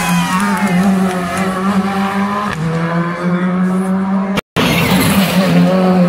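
Rally car engine held at high revs through a hairpin, its pitch dipping and climbing again through gear changes. It breaks off sharply about four seconds in, and a second rally car's engine is heard running hard.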